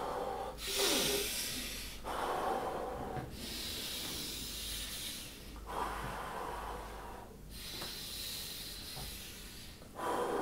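A man breathing in and out as forcefully as he can, one deep breath after another, each lasting a second or two, during an arm-swinging breathing exercise.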